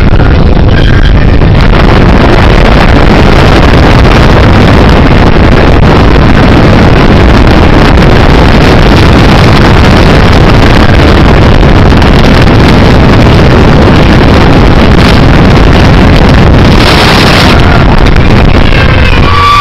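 Open-deck thrill-ride speedboat running at speed: a loud, steady rush of wind on the microphone over the boat's engines and water.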